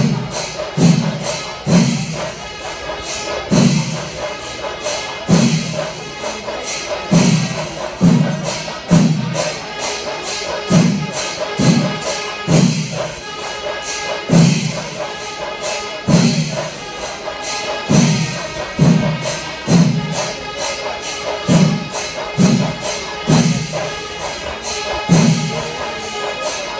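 Panchari melam: a Kerala temple percussion ensemble of chenda drums and ilathalam cymbals, playing a fast, dense rhythm with strong low drum strokes about once a second.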